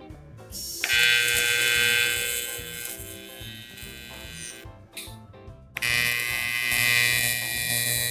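A small power tool buzzing at high speed in two runs, starting suddenly about a second in, stopping for about a second near the middle, then starting again, over background music.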